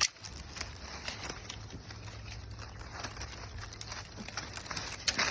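Rustling and crackling of vines and leaves, in scattered sharp clicks and snaps over a steady low rumble.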